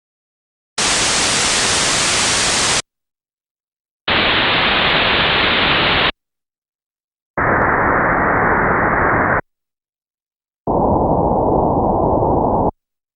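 Low-pass filtered white noise played as four separate bursts of about two seconds each with short gaps of silence, the cutoff dropping from 10,000 to 4,000, 2,000 and 1,000 Hz, so each burst sounds duller and lower than the one before.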